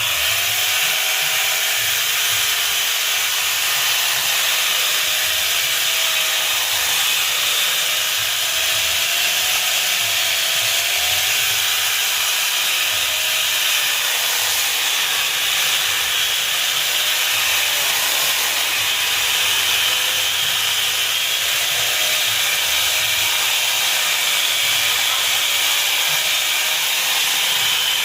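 Mini chainsaw running steadily while cutting wood: a continuous hissing buzz with a faintly wavering motor tone as the load changes.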